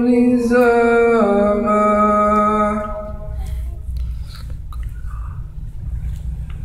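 A male Quran reciter's voice holding the last word of the verse on one long chanted note, stepping down in pitch about a second in and ending about three seconds in. After that, a low steady hum with faint rustles and light knocks.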